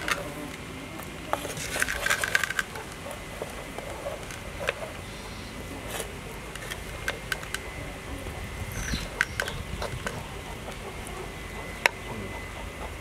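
Wooden spoon scraping and knocking in a clay pot as pieces of cooked chicken are scooped out onto a stainless steel plate: scattered taps and clicks, busiest about two seconds in and again around nine seconds.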